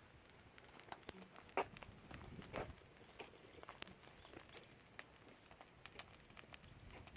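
Firewood burning, with irregular crackles and snaps and two louder pops about a second and a half and two and a half seconds in.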